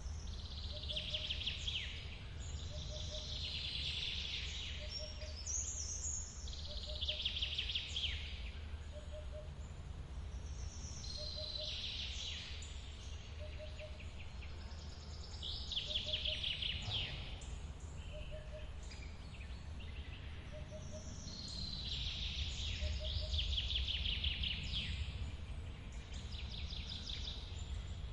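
Forest waterfall making a steady low rush of falling water. A songbird repeats a fast, high trilled song every few seconds, and a soft short low note repeats about once a second.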